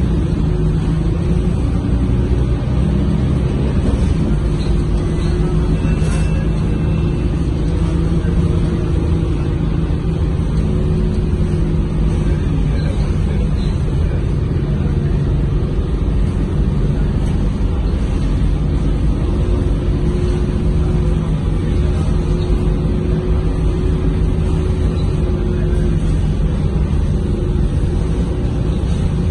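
Cabin noise of a Mercedes-Benz OC500LE city bus under way: the diesel engine's steady drone over road and tyre rumble, its note shifting a little in pitch as the bus changes speed.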